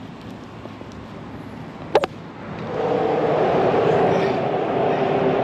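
One sharp click about two seconds in. Then a steady hum with a couple of held tones swells up and carries on: traffic crossing the drawbridge overhead.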